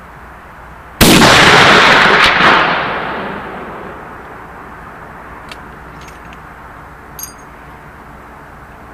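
A single shot from a Grizzly LAR .50 BMG rifle firing an 822-grain incendiary tracer, about a second in: a very loud blast that rolls on as echo and dies away over about three seconds. A few faint clicks follow.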